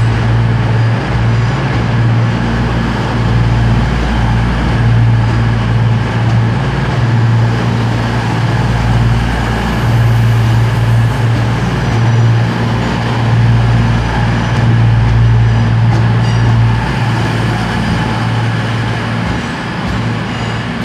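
CrossCountry Class 221 Super Voyager diesel-electric unit's underfloor diesel engines running with a loud, steady low drone as the train pulls slowly out past the platform.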